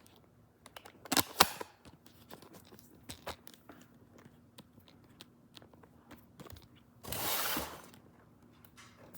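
Flat-pack cabinet parts being handled and set down: two sharp knocks about a second in, light scattered clicks, and a short scraping rush near the end.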